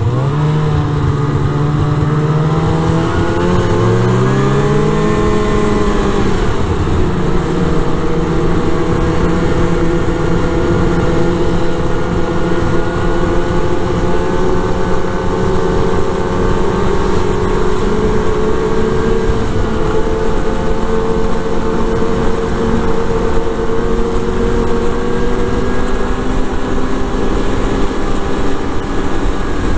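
Snowmobile engine running while riding, heard from the seat. Its pitch climbs over the first few seconds as the sled speeds up, then holds steady at cruising speed over a constant rush of wind and track noise.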